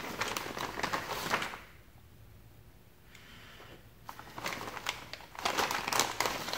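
Small clear plastic bag crinkling as it is handled, in two spells: for about the first second and a half, then again from about four seconds in.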